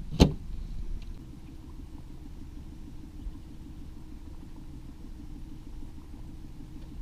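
Boat's outboard motor running steadily at trolling speed, a low even hum. Just after the start, one sharp knock as a plastic cooler lid is shut.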